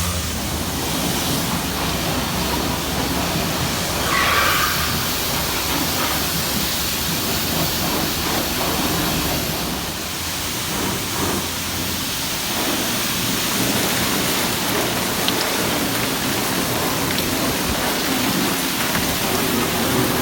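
Steady loud rushing noise, like wind across the microphone, over the low hum of a running Suzuki GSX-R1000 motorcycle engine.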